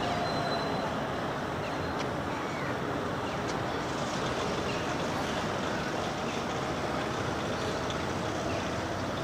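Steady engine noise, with a faint engine pitch drifting slowly up and down.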